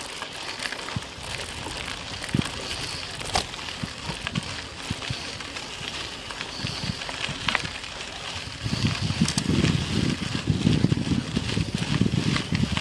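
Bicycle being ridden uphill on rough ground, with the noise of the ride and scattered clicks and rattles from tyres and frame. About eight and a half seconds in, a louder, uneven low rumble comes in and stays.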